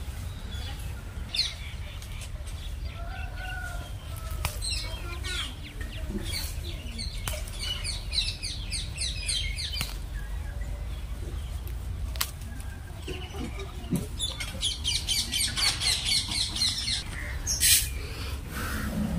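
Small birds chirping, with several quick runs of high repeated notes about halfway through and again near the end, over a steady low rumble.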